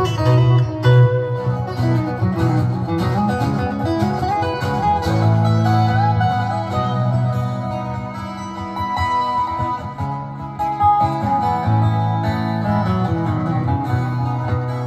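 Live guitar music: a picked guitar melody over a plucked guitar accompaniment with sustained low notes, played through PA loudspeakers.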